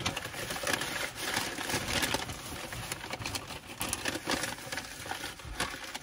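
Crinkling and rustling of a fast-food paper wrapper being handled close to the microphone, an irregular run of small crackles and clicks with eating noises mixed in.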